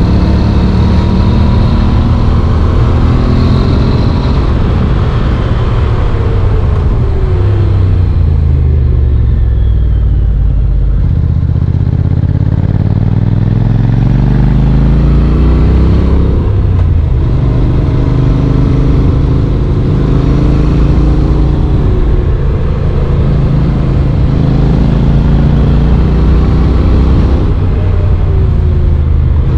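Honda NC750X motorcycle's parallel-twin engine on the move. The engine note falls as the bike slows, then rises as it accelerates. It breaks at a gear change just past halfway, then holds fairly steady, with another brief break near the end.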